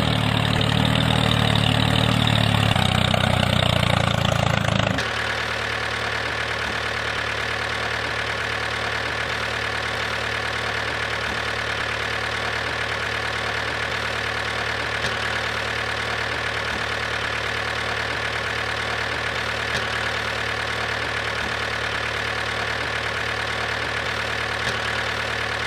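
Small tractor engine running, louder and rougher for about the first five seconds, then switching abruptly to a steady, even running note with a thin high tone over it.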